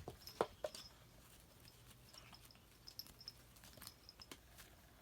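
Faint, scattered light taps and clicks of a cat playing with a toy, with short high-pitched blips now and then.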